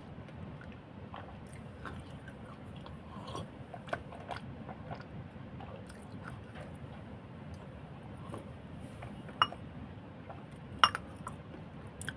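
A person chewing close to the microphone, with small wet mouth clicks throughout. Two sharp, loud clicks come about a second and a half apart near the end.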